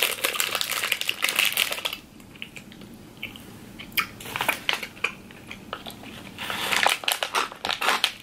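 Plastic snack wrapper crinkling as it is handled for about two seconds, then a quieter stretch of crunchy chewing, and another short burst of crinkling, a foil drink pouch being handled, about a second before the end.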